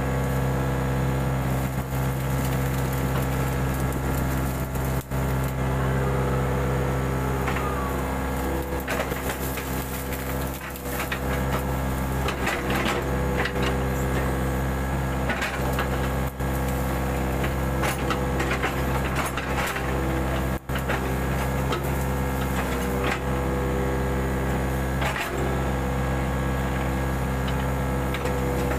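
Mini excavator engine running steadily under working load, with scattered knocks, clanks and crunching from the bucket and arm as it digs.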